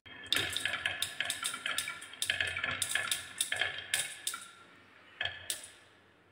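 Glass marbles rolling down a wooden track and clacking into one another as they queue up against a wooden stop: a quick run of sharp clicks that thins out after about four seconds, with a last couple of clicks and then fading.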